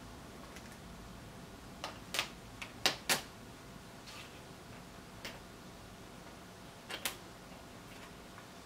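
Small sharp clicks and taps of a circuit board and its parts being handled and set down on a cutting mat: a quick cluster about two to three seconds in, then a few fainter ones, and a pair near seven seconds.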